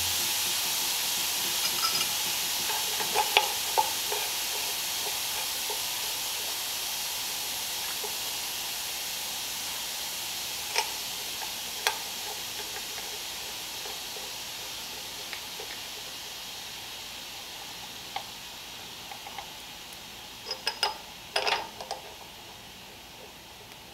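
A steady hiss that slowly fades away, with a few light clicks and clinks scattered through it, a cluster of them near the end.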